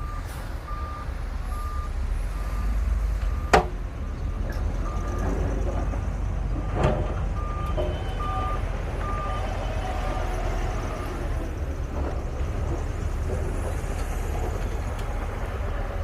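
Heavy diesel earthmoving machinery running with a steady low rumble while a reversing alarm beeps a little more than once a second, pausing briefly and then stopping about two-thirds of the way through. Two sharp metallic knocks, the louder one about three and a half seconds in.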